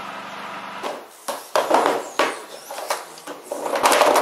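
A steady engine hum that cuts off about a second in. Then hard draw capsules knock and clatter against a clear plastic lottery drum, building to a dense, continuous rattle as the drum is turned near the end.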